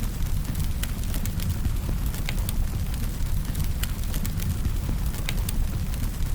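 Wood fire burning, with a steady low rumble and irregular sharp crackles and pops from the firewood.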